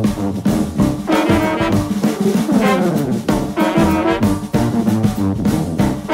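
Background music led by brass instruments, with drums.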